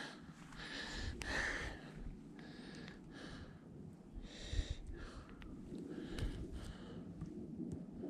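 A person breathing in and out close to the microphone, a short breath about once a second.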